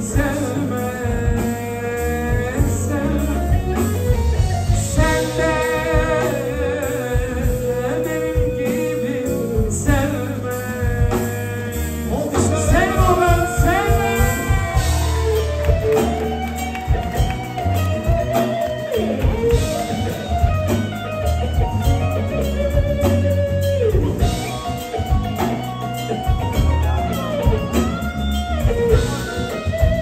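Live band playing an instrumental passage of a Turkish song: electric guitar and keyboard carry long held melody notes with vibrato over a steady bass beat.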